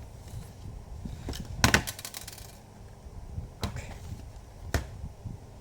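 Small metal clicks and clinks of a screwdriver and screws on a laptop's casing, with one louder, briefly ringing clatter about one and a half seconds in and a few single clicks after it.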